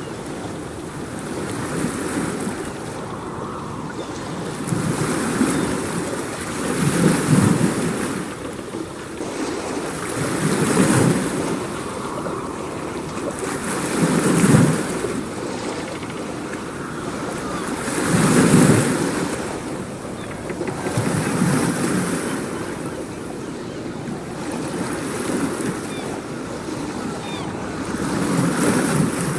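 Ocean surf: waves breaking and washing in one after another, each swelling up and falling away every three to four seconds.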